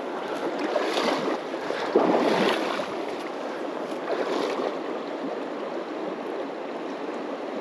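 Stream water rushing steadily over rocks, with a few brief louder swells about one, two and four seconds in.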